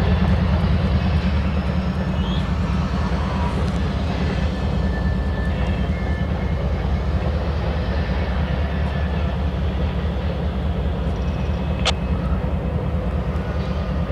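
Diesel-electric freight locomotives running at low throttle, a steady deep engine rumble as the train moves slowly. A single sharp click sounds about twelve seconds in.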